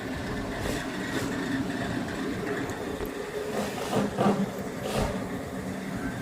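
Steady low machine hum, with a few light knocks and taps over it.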